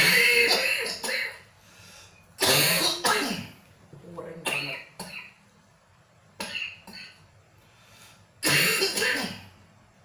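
Harsh coughing and hard throat clearing in several fits: loud ones at the start, about two and a half seconds in and about eight and a half seconds in, with shorter, weaker ones between. It comes from a man's chesty cough that has lasted over a month, while his throat and chest are pressed.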